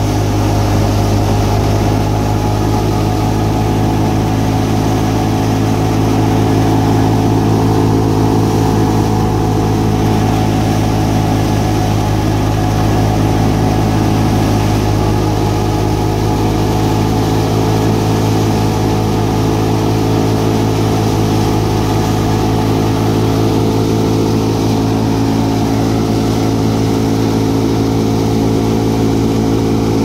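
Batala wheat thresher running steadily, belt-driven by an old Fiat 640 tractor's diesel engine: a loud, even drone of engine and threshing drum with no change in speed.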